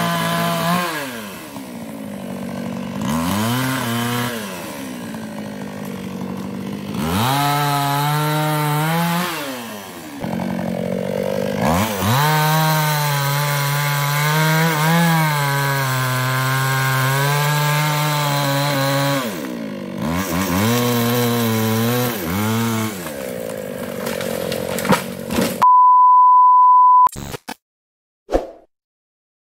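Small two-stroke chainsaw, a New West 628, revving and cutting through sengon logs, its engine pitch rising, holding high in the cut and falling again several times, with one long steady cut in the middle. Near the end the saw stops and a steady high beep sounds for about a second.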